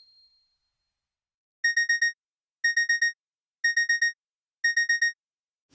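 Electronic beeping: four rapid high beeps in a group, repeated four times about once a second, in the pattern of a digital alarm.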